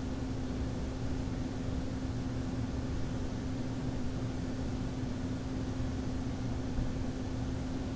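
Steady background hum and hiss that does not change, with a constant low tone under it.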